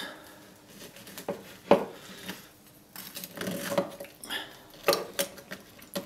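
Metal knife and fork cutting through a stack of crisp waffles, with clinks, knocks and scrapes of the cutlery on a wooden cutting board. The sharpest knock comes a little under two seconds in.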